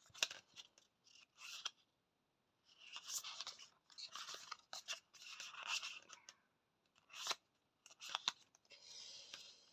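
Petit Lenormand oracle cards being handled: a run of soft papery scrapes and rustles as cards slide against one another, broken by a few sharp clicks.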